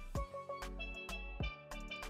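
Instrumental background music with a steady drum beat, a bass line and a bright melody.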